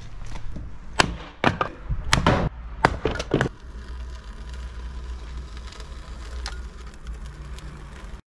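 A series of about seven sharp knocks and cracks in the first three and a half seconds, over a low steady rumble that carries on after them.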